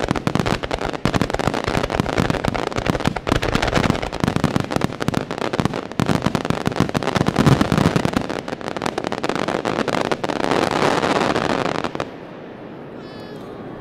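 Wide starmine fireworks barrage: a dense, rapid volley of bangs and crackling shell bursts that stops abruptly about twelve seconds in. A brief quieter lull follows, and a few more bangs sound at the very end.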